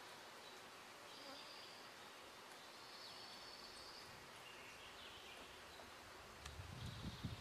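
Near silence: faint outdoor ambience with a faint high-pitched insect buzz now and then. A low rumble starts near the end.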